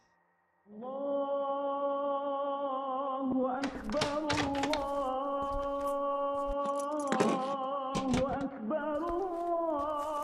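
Music comes in under a second in: a held, slowly wavering vocal line over a steady drone, broken by several sharp knocks.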